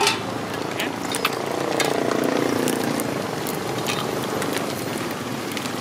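Quail deep-frying in a large pot of hot oil: a steady crackling sizzle, with sharp clicks of metal tongs and a wire strainer against the pot. A low hum swells and fades in the middle.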